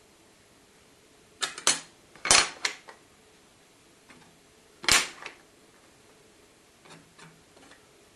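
Hard plastic model-building parts set down one by one on a board, giving short sharp clicks and clacks: two about a second and a half in, two more just after two seconds, one near five seconds, and a few faint taps near the end.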